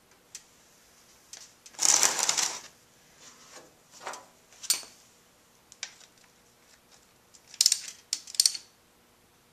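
Ratchet wrench and metal tools handled at a motorcycle's oil drain plug: a dense rattle of metallic clicks about two seconds in, scattered single clicks, then two short bursts of ratchet clicking near the end as the ratchet runs the plug in.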